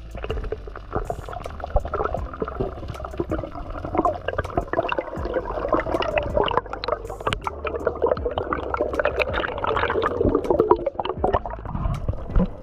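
Underwater sound picked up by a camera in the sea: water rushing and gurgling as the diver swims, with many sharp clicks throughout.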